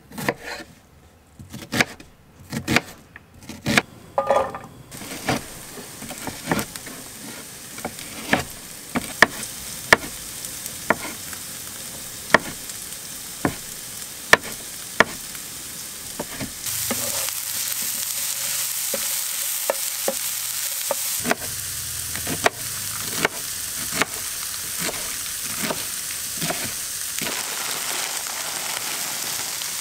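A chef's knife chopping on a wooden cutting board in sharp, regular knocks, while plant-based sausage and vegetables sizzle in a frying pan. The sizzling grows louder a little past halfway as more food goes into the hot pan.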